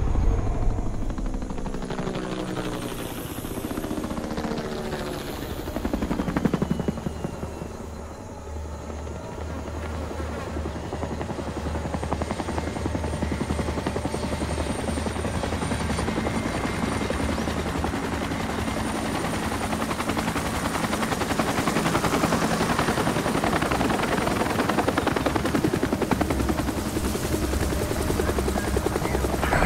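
Military utility helicopter of the Bell UH-1 Huey type, its rotor beating steadily and growing louder as it comes in to land. In the first few seconds a low, falling drone of layered tones sits under it.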